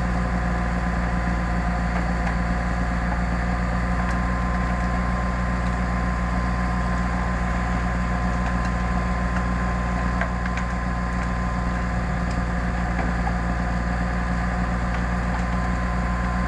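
Heavy diesel engine idling steadily, with no revving or change in speed.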